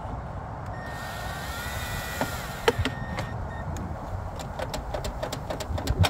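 Cordless drill/driver driving a screw into a car door panel: a motor whine with shifting pitch starts about a second in and lasts about two seconds. A series of sharp clicks follows, over a steady low rumble.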